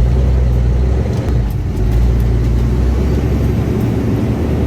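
Grain truck's engine running steadily with a deep, low hum as the truck drives off.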